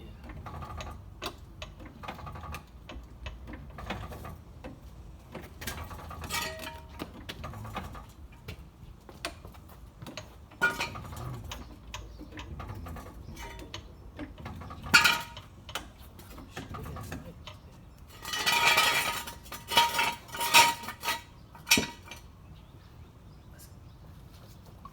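Scattered metallic clinks and clatter of tools and parts during an oil change. There is one sharp clank about two-thirds of the way through and a longer, louder spell of ringing metal clatter soon after.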